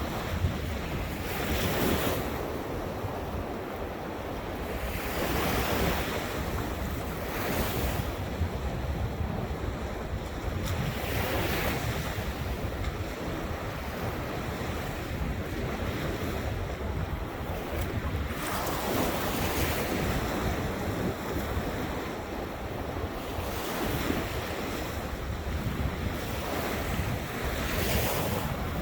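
Ocean surf, waves breaking and washing ashore in swells every few seconds, with wind rumbling on the microphone.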